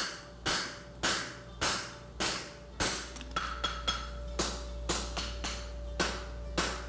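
Hand hammer striking hot steel bar stock on an anvil in a steady rhythm of about two blows a second, each blow ringing briefly: a farrier bumping up (upsetting) the heel end of a horseshoe blank.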